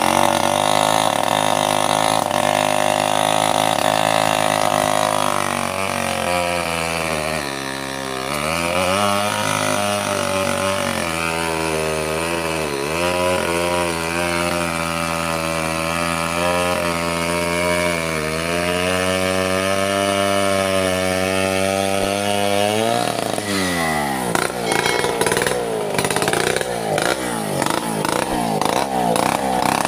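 Stihl two-stroke chainsaw cutting through a mahogany log. Its engine runs hard and steadily, with the pitch sagging and recovering several times as the chain loads up in the wood. From about two-thirds of the way in, the engine note swings up and down.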